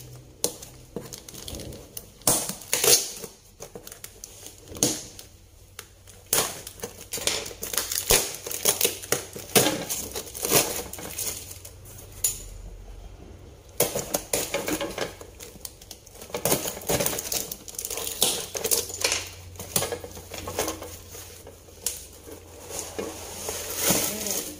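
A cardboard parcel being opened by hand: plastic packing tape ripped and peeled off the box, with cardboard and plastic crackling and crinkling in irregular rips and rustles, and a short lull about halfway through.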